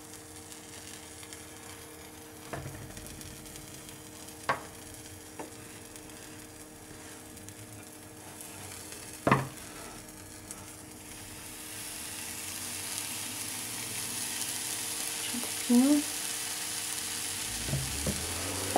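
Hands stirring and pressing tapioca starch and grated coalho cheese in a non-stick frying pan, with a few sharp knocks against the pan, the loudest about halfway through. Over the second half a faint sizzle rises steadily as the mixture heats in the pan.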